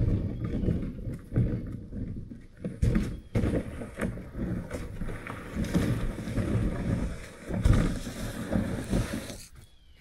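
Old Town Sportsman 120 plastic kayak hull being dragged over sandy dirt, an uneven scraping rumble that stops shortly before the end.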